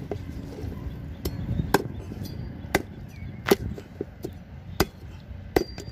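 Machete chopping through a sailfish's bill on a wooden board: a series of sharp blade strikes, unevenly spaced.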